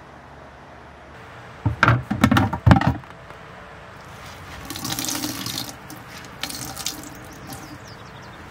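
Water splashing and running in a stainless steel sink as it is cleaned, with a loud cluster of splashes about two seconds in and quieter gushes of running water around five seconds and again a little later.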